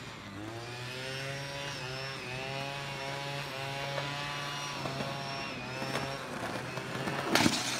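A small petrol engine running steadily, its pitch wavering a little, like a power tool or yard machine working somewhere in the neighbourhood. Near the end a skateboard clatters on the concrete.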